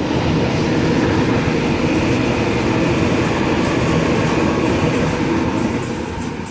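Waratah Series 2 electric multiple unit (set B4) passing through the station at speed: a loud, steady running noise of wheels on rail that swells at once and begins to fade near the end.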